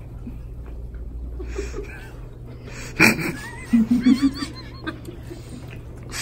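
Women laughing in short bursts with high squeals, about three seconds in, right after a single sharp sound.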